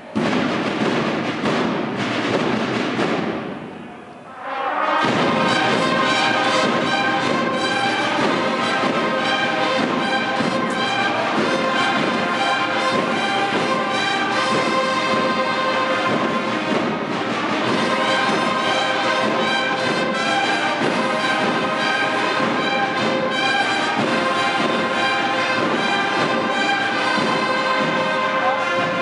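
Brass band with drums playing, led by trumpet-type brass. After a few seconds of noisy sound that fades away, the full brass comes in about five seconds in and plays on steadily.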